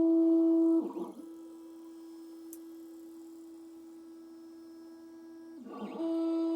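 Stepper motors of a Creality CR10 S5 3D printer whining at one steady pitch as the print head makes long moves while printing PETG. About a second in the whine drops much quieter after a brief rattle of direction change, and near the end it jumps back to full strength.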